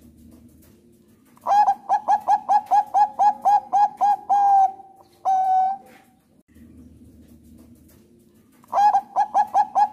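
Zebra dove (Thai-bred perkutut bangkok) singing: a fast run of about a dozen short, clipped coos, roughly four a second, ending in a longer held coo. A second long coo follows, and after a pause a new run of quick coos starts near the end.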